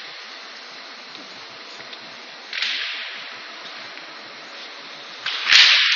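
Two short hissing bursts over a steady background hiss, one about two and a half seconds in and a louder one near the end. The louder one starts with a sharp click and dies away over about a second.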